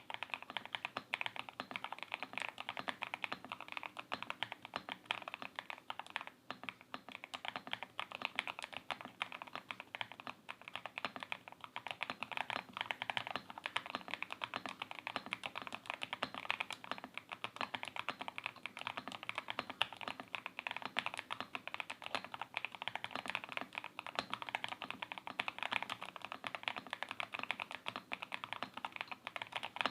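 Continuous fast typing on a stock TKL mechanical keyboard with factory-lubed Vertex V One linear switches, a dense, steady run of key clicks that starts and stops abruptly.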